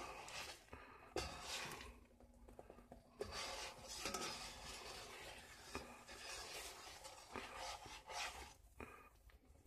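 A metal fork scraping and stirring eggs in a cast-iron skillet, in irregular rasping strokes. A few sharp clinks of metal on the pan come about a second in and again around four and six seconds.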